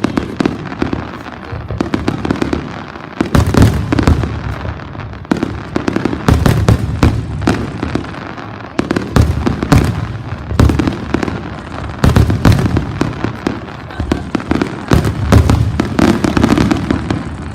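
Fireworks display in a dense barrage: many sharp shell bursts and bangs in quick succession with crackling between them and a low rumble underneath.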